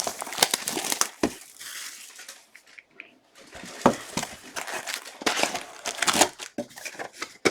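Crinkling and rustling of plastic wrapping on a box of trading cards being handled and opened, with a short pause about three seconds in.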